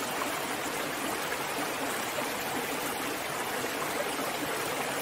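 A shallow stream rushing over rocks, a steady, even rush of water.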